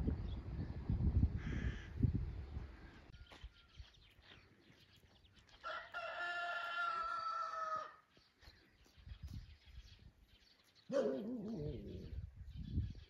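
A rooster crowing once, a single call of about two seconds near the middle. A shorter, lower call that falls in pitch comes a few seconds later, and low knocks and rustling sound in the first two seconds.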